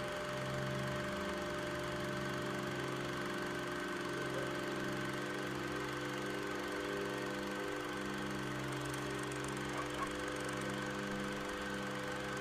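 Background music of steady, droning low tones.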